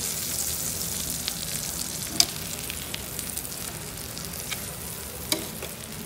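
Bread squares frying in butter in a pan, sizzling steadily, while a cooking utensil stirs and turns them; two sharp clicks of the utensil on the pan about two and five seconds in.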